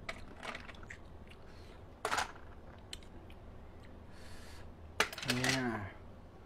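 Blood cockle shells clicking and cracking as they are pried open by hand, a few sharp clicks spread out, the loudest about two and five seconds in. Just after five seconds a brief voice sound falls in pitch.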